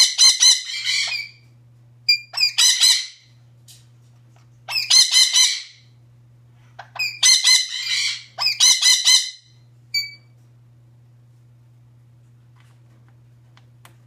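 A parrot squawking in bouts of rapid, harsh, repeated calls, five bouts in quick succession, with one short call after them. The squawking stops about ten seconds in.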